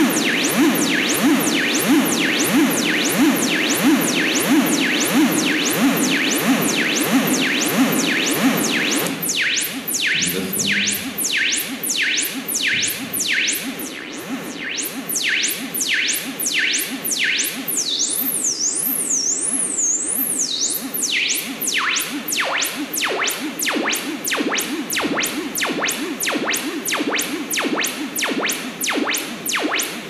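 Moog Mother-32 analog synthesizer playing a fast repeating pattern of short notes, each sweeping down in pitch like a zap. About nine seconds in the low body of the sound drops away, leaving only high sweeps, and it comes back later as the knobs are turned.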